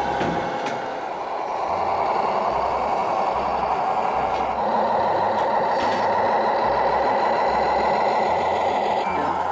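Radio-controlled scale cement mixer truck running: a steady, loud truck-like engine and mechanical noise.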